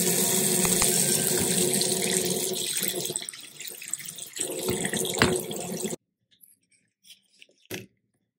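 Bathroom sink faucet running, the stream splashing into the basin, weaker for a moment around three to four seconds in; it stops abruptly about six seconds in. A few faint ticks and a short knock follow near the end.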